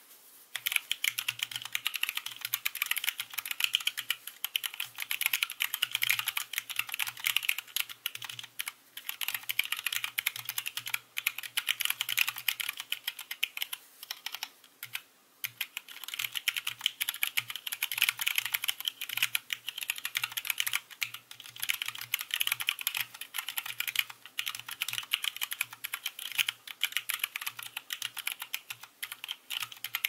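Continuous touch-typing on a 40% Minivan Low Writer mechanical keyboard with Kailh Box Brown tactile switches in a 3 mm bamboo plate: rapid, overlapping keystroke clacks, with a short pause about halfway through.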